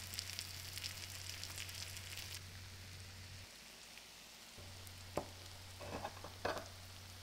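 Chopped pork sisig sizzling and crackling in melted margarine on a hot metal sizzling plate. About two and a half seconds in the crackle drops to a softer, steady hiss, with a single sharp click a couple of seconds later.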